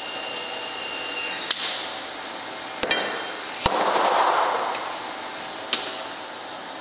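Small hammer striking a metal part on a wooden tabletop: a handful of sharp taps, a quick double about three seconds in and the heaviest just after, some with a brief metallic ring. A noisy rush follows the heaviest blow for about a second.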